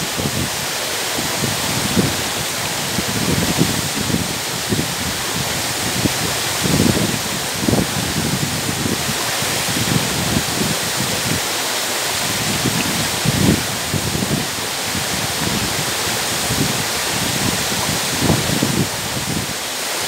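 Makhuntseti waterfall: a steady rush of water falling over rock onto boulders, with uneven low rumbling underneath.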